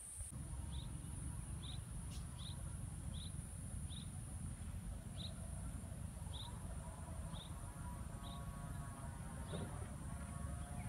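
Outdoor ambience in open farmland. Wind rumbles low on the microphone and insects give a steady high drone. A small bird gives a short chirp about once a second, around ten times.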